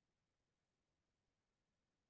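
Near silence: faint background hiss only.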